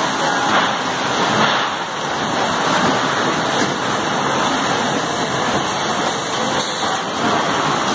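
Steady rushing machine noise of an ADPRO Weighmetric eight-head oil filling machine running, filling plastic jerrycans.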